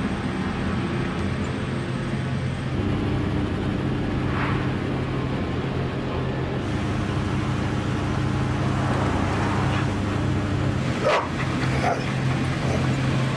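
A steady low engine hum with a dog barking: once about four seconds in and twice near the end.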